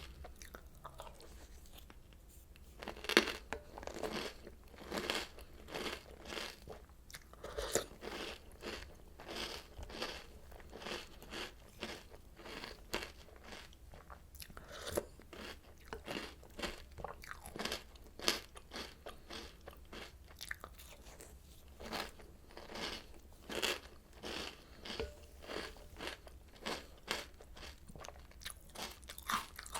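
A person chewing crunchy Oreo O's cereal: a steady run of crisp crunches, about two a second, with one loud bite about three seconds in.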